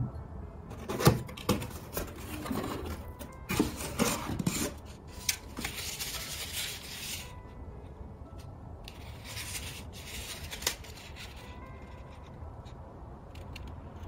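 Cardboard shipping box and kraft-paper sleeve handled up close: rustling and rubbing in two stretches, with a few sharp knocks about a second in.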